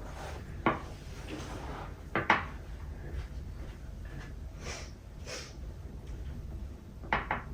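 Tableware knocking and clinking as food is dished up: a few separate light knocks, about a second in, around two seconds in and again near the end, with faint rustling between.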